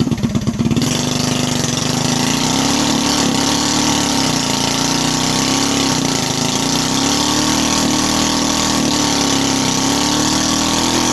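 Small 212cc single-cylinder four-stroke engine on a mini bike running hard. It cuts in abruptly with a few choppy pulses, then holds a steady high-revving note whose pitch wavers slightly.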